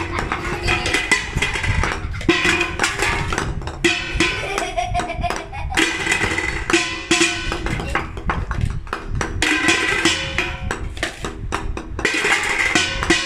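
Golf balls clicking and knocking in a dense, irregular run of sharp hits, with pitched ringing between them, used as cartoon-style animation sound effects.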